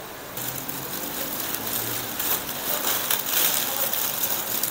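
Plastic bag of dry rice vermicelli crinkling and rustling as it is handled, a dense, irregular crackle that starts about half a second in.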